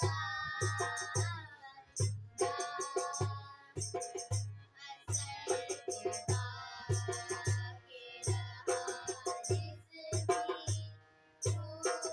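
Two girls singing an Urdu Christian song (Masihi geet) over a steady low drum beat of about two a second and a rattling percussion.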